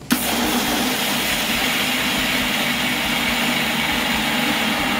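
Electric mixer grinder running at full speed, grinding dry-roasted flax seeds and peanuts with jaggery into a coarse powder. It starts abruptly and runs steadily, a constant whir over a low hum.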